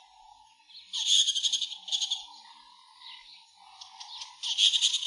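Wild animal calls: loud bursts of rapid, high chirping trills about a second in, around two seconds and again near the end, over a steadier, lower warbling call.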